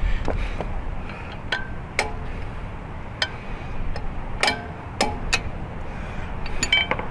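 Metal hand tools clinking and knocking together as they are picked through, about ten sharp strikes, several of them ringing briefly.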